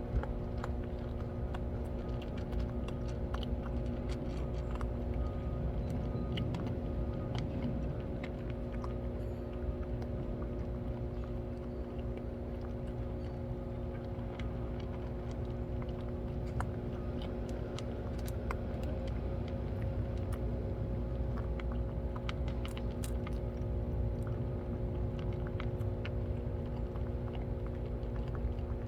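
Cats chewing and crunching their food: many short, scattered crunches and clicks, over a steady low mechanical hum.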